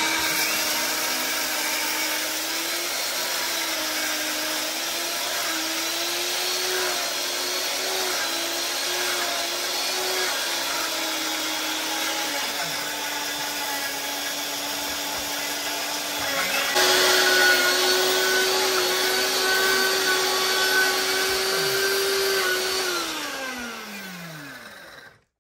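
Two electric high-speed stainless-steel grain mills grinding grain and almonds, their motors running together with a loud, slightly wavering whine. One winds down about halfway through, a louder, higher whine starts a few seconds later, and it spins down with a falling pitch near the end.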